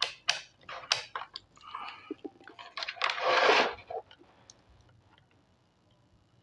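Clicks and crackling from handling a multimeter's test probes on an LED bulb, with a short rushing noise about three seconds in.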